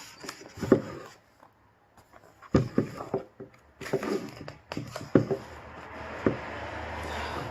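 Handling noise of album packaging: several sharp knocks and taps with short quiet gaps, then a steady rustle from about six seconds in.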